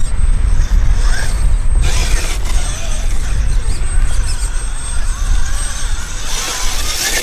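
RC rock crawler's electric motor and geared drivetrain whining and ratcheting as it crawls over a rock, the whine rising and falling with the throttle, over a steady low rumble.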